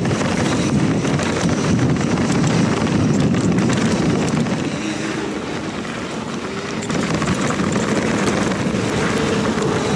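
Wind rumbling over the microphone of a mountain bike ride camera, mixed with trail and tyre noise from the bike, easing for a couple of seconds midway.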